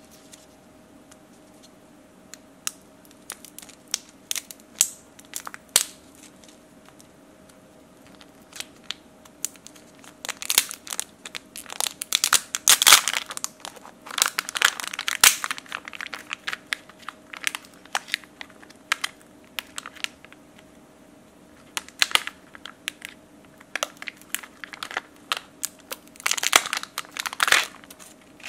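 Plastic candy-egg wrapping crinkling and crackling as it is peeled and torn open by hand: scattered sharp crinkles at first, then dense bursts of crinkling about a third of the way in and again near the end, over a faint steady hum.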